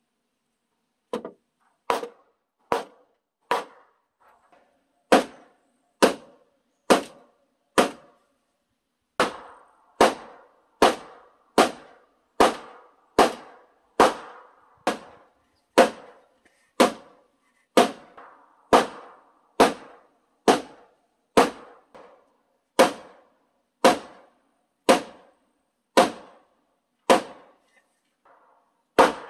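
Steady hammer blows on the log timber frame, about one strike a second, each a sharp crack with a short ringing tail. The blows pause briefly twice in the first ten seconds, then run on evenly.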